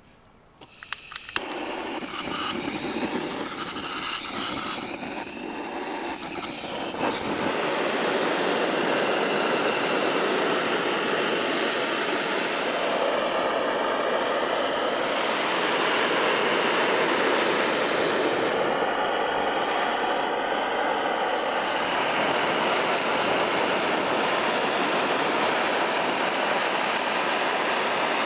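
Handheld butane blowtorch on a gas canister firing a flame onto melted cheese. It clicks a few times about a second in, then runs with a steady rushing hiss that grows louder about seven seconds in.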